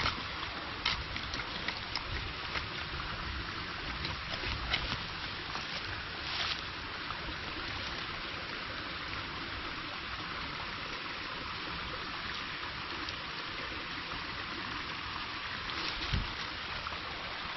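Steady rush of a valley stream, with scattered knocks and scrapes as a bodinamul plant's root is dug out of the ground.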